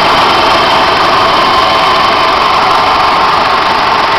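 Engine running steadily at idle, loud and even throughout, with a faint thin steady whine above it.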